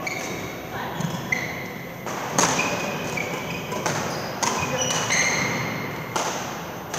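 Badminton rackets striking a shuttlecock in a doubles rally: several sharp hits about a second apart, the loudest about two and a half and six seconds in. Court shoes squeak briefly on the floor between the hits.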